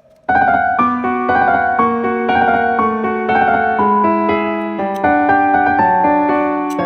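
Background music: piano or electric keyboard playing a steady run of notes that starts about a quarter second in.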